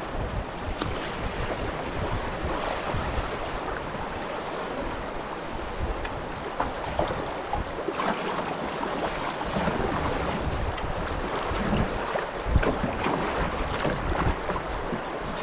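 Rushing river rapids around a canoe's bow, with water splashing and slapping against the hull and wind buffeting the microphone.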